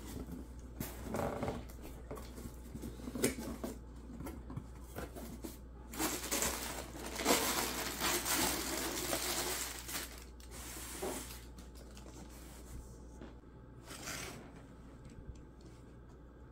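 Cardboard shipping box being handled and crumpled brown packing paper rustling and crinkling as it is pulled out, loudest for about four seconds in the middle.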